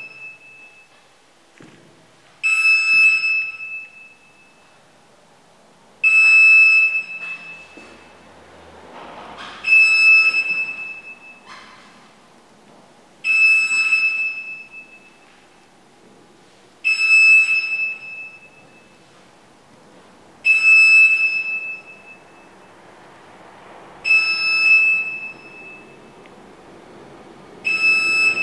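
Electronic alarm beep repeating about every three and a half seconds, eight times: each is a single high tone, about a second and a half long, starting sharply and fading out.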